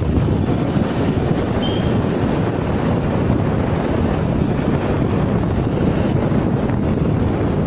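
Steady, loud wind buffeting the microphone, heaviest in the low end, with one brief faint high chirp about two seconds in.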